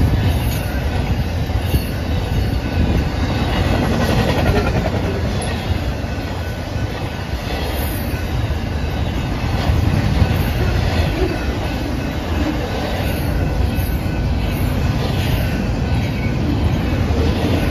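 BNSF double-stack intermodal well cars rolling past close by: steel wheels on the rails give a steady rumble with clickety-clack over the rail joints.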